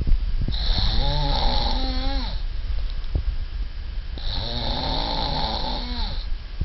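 Snoring: two long, rasping snores of about two seconds each, the first starting about half a second in and the second about four seconds in, over a steady low rumble.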